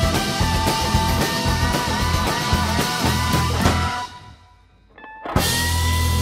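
Live rock band playing: electric guitars, electric keyboard and drum kit. About four seconds in the band stops and the sound dies away, then the whole band comes back in together on a hit about a second later.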